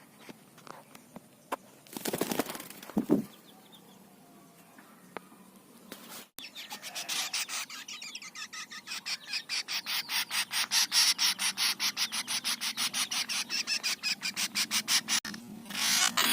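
Tame birds fighting: a short scuffle of flapping wings about two seconds in. From about six seconds comes a long run of rapid, even rasping strokes, about four a second, that stops shortly before the end.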